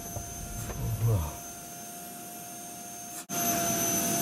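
Suction hose vacuum machine running steadily, first faint, then much louder after a sudden cut about three seconds in. A man's voice sounds briefly about a second in.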